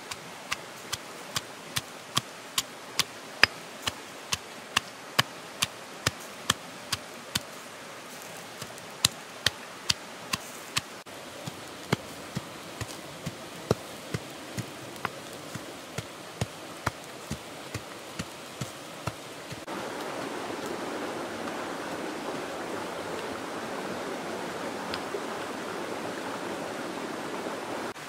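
Stone pestle pounding red chilies and garlic in a stone mortar: sharp knocks about twice a second, with a couple of short pauses. About two-thirds of the way through the knocking stops and a steady hiss takes over, from fish grilling over hot embers.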